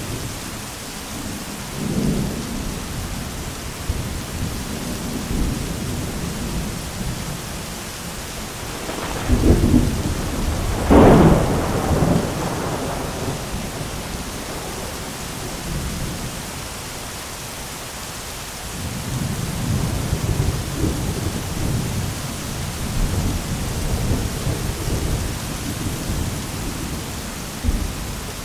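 Heavy rain falling steadily under rolling thunder. Low rumbles come and go, and a louder, sharper thunderclap breaks about a third of the way in, with more rumbling near the end.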